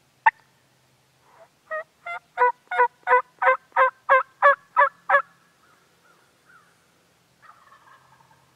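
Turkey calling: one sharp note, then a run of about a dozen evenly spaced yelps, roughly three a second, getting louder and then breaking off, with a softer, drawn-out call near the end.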